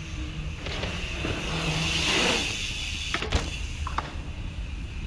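Bike rolling over skatepark concrete: a hiss of tyres and hub that swells and fades about two seconds in, with a sharp knock a little after three seconds and a few lighter clicks.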